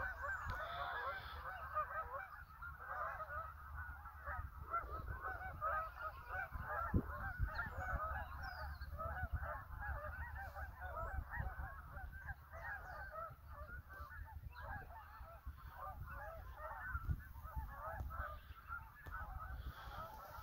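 A large flock of Canada geese honking in flight, a continuous chorus of many overlapping calls.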